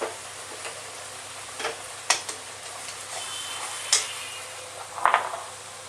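Onion paste and spices frying in oil and ghee in a kadai, with a steady sizzle. A spoon clinks sharply against the pan or a bowl about five times as spices are added.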